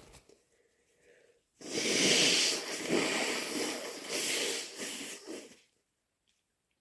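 A person blowing their nose hard into a tissue: one long, noisy blow of about four seconds that surges several times before stopping.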